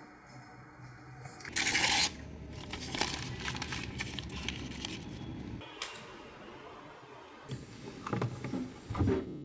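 A notebook page torn and crumpled up by hand, with a sharp loud rip about one and a half seconds in followed by a few seconds of crackling. A notebook is then handled on a wooden desk, with a few soft knocks near the end.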